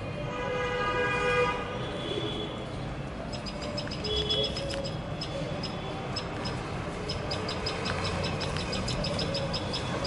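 Rapid runs of short, high chirps, about six or seven a second, starting about three seconds in and again from about seven seconds, over steady traffic noise. Near the start a vehicle horn sounds for about a second and a half.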